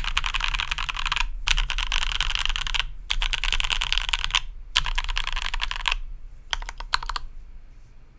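Fast typing on a custom mechanical keyboard with lubed H1 switches, filmed stabilizers' keys and GMK keycaps on a 5 mm full acrylic plate: rapid keystrokes in four runs broken by brief pauses, then a few last scattered keystrokes near the end.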